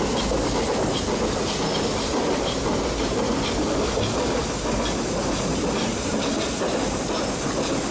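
Metre-gauge Nilgiri Mountain Railway train running: a steady rumble with the light clicking of wheels over the rail joints.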